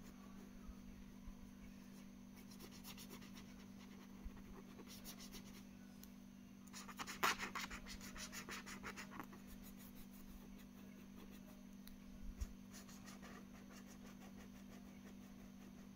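Felt-tip marker scribbling back and forth on paper while colouring in, in short runs of quick strokes that are loudest about seven to nine seconds in.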